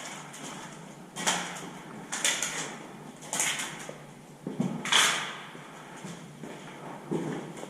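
Slow footsteps, about one a second, each a gritty scuff or crunch.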